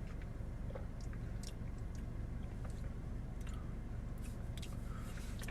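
Small mouth sounds of sipping and tasting a drink: scattered soft lip and tongue clicks and a swallow, over a steady low hum.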